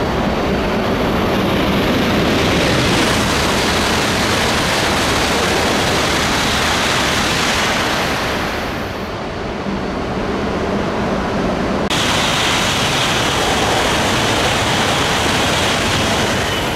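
Shinkansen train passing through the station at high speed: a loud, steady rushing roar of air and wheels on rail. The roar eases slightly around nine seconds in, then changes abruptly to a harsher roar about twelve seconds in as an E5-series Shinkansen streaks past.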